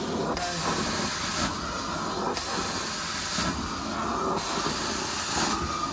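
Hot-water extraction carpet-cleaning wand working the carpet: a steady suction rumble with a high spray-and-suction hiss that comes in about one-second strokes, three times, with short lulls between them.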